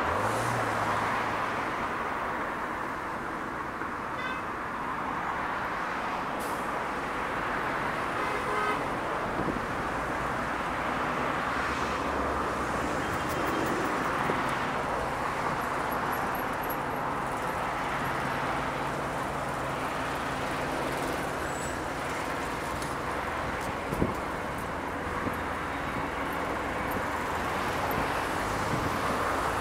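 Steady outdoor traffic noise, with a couple of faint short pitched toots about 4 and 8 seconds in and a single sharp knock near the end.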